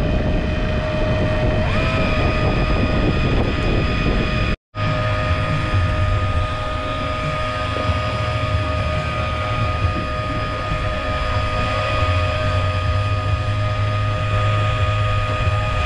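A motor running with a steady whine over a low hum. The sound drops out completely for a split second about four and a half seconds in.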